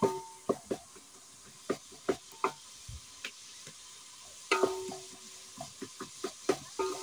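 A metal spoon stirring food in a metal cooking pot on a firewood stove, with irregular clicks and knocks against the pot. Several strikes leave the pot ringing briefly, the longest about halfway through.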